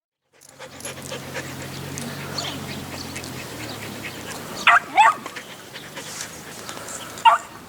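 A dog giving short, high, falling yips: two in quick succession about halfway through, and one more near the end.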